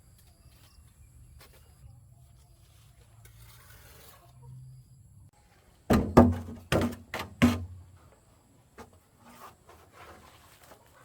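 A quick, uneven run of about six hard knocks a little past the middle, each with a short low ring, amid faint rustling and handling: work on timber.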